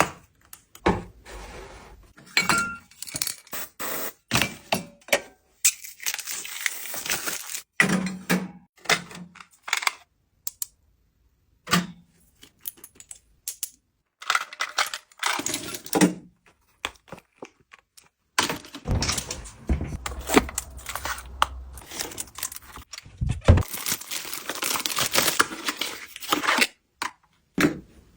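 Packaging being handled and opened by hand: crinkling and tearing wrap mixed with many small taps, clicks and knocks of items and box parts, with a short pause about ten seconds in.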